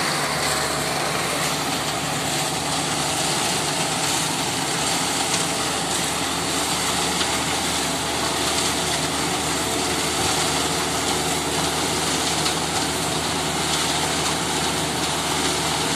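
Engine of a self-loading concrete transit mixer running steadily at a constant speed.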